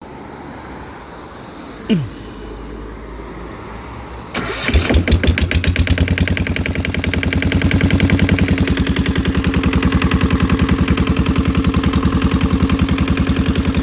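Freshly overhauled Yanmar 1GM single-cylinder marine diesel engine starting about four seconds in, then running steadily with a fast, even beat of firing strokes. A sharp click about two seconds in, over a low hum, comes before the start.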